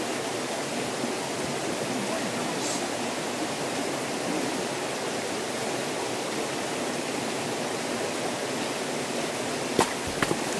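Steady rushing of a small forest stream running over rocks, with a few sharp clicks or knocks near the end.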